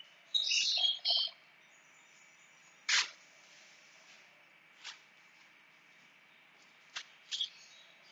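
Chalk on a blackboard: a few sharp, separate taps and clicks a second or two apart as the board is written on. Near the start, a short high squeak in two parts is the loudest sound.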